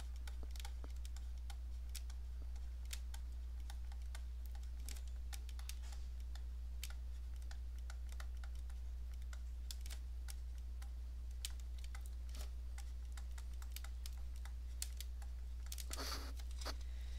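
Stylus tapping and clicking on a tablet screen while words are handwritten: scattered, irregular light clicks over a steady low hum.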